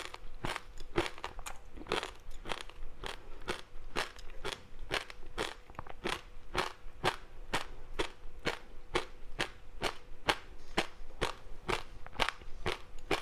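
Close-up chewing of a crispy seaweed-wrapped rice snack: a steady run of crisp crunches, about three a second.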